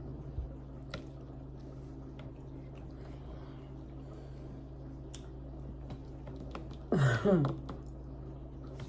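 Person chewing soft food with faint wet mouth clicks over a steady low hum; about seven seconds in, a brief loud vocal sound whose pitch slides down and back up.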